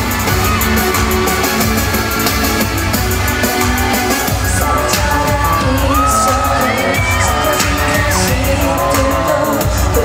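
Loud live pop music played over an arena's sound system, with fans in the crowd yelling and screaming over it.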